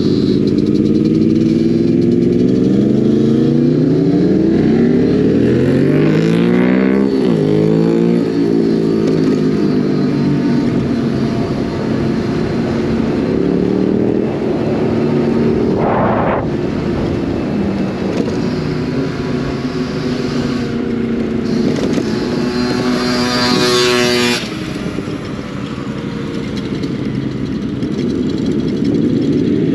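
Motorcycle engines running at speed, their pitch climbing and then dropping at each gear shift. About halfway there is a brief sharp burst, and later one bike revs hard and high before backing off suddenly.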